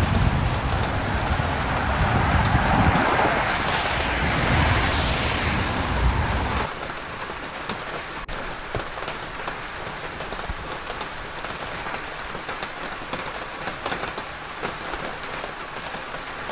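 Rain falling on a wet city street, a steady hiss. In the first few seconds a vehicle swishes past on the wet road with a low rumble, its hiss swelling and fading; the rumble stops abruptly about seven seconds in, leaving only the rain.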